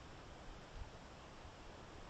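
Faint, steady hiss of a trail camera's microphone, with a couple of faint low bumps about half a second and just under a second in.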